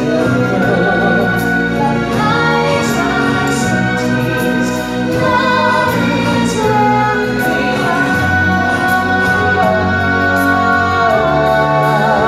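Show music with a choir of voices singing and a woman singing lead into a microphone, loud and steady over a full band backing.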